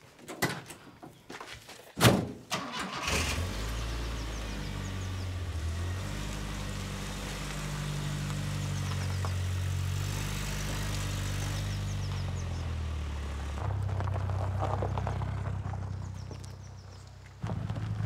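Volkswagen Vanagon camper van: a door slams shut about two seconds in, then the engine starts and runs steadily, swells briefly and fades as the van pulls away.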